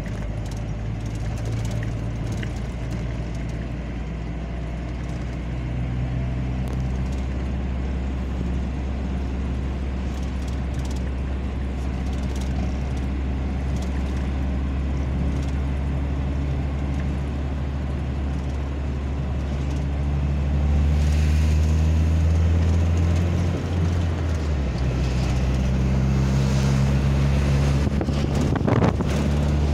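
Engine hum and road noise from inside a slowly moving car, with a heavy diesel road-milling machine's engine running louder in the last few seconds. A short sharp sound comes near the end.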